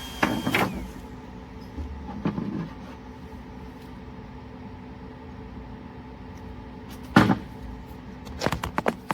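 Clicks and knocks of a Flashforge Adventurer 5M Pro 3D printer's quick-swap nozzle, latch and cover being handled, over the printer's steady hum. A loud sharp knock comes about seven seconds in, then a quick run of clicks near the end.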